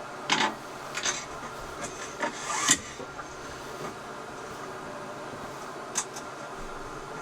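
A few short scrapes and clicks from things being handled, the loudest about two and a half seconds in, over a steady low hum.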